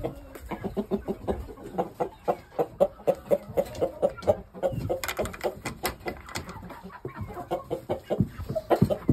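Chickens clucking in a quick run of short calls, several a second.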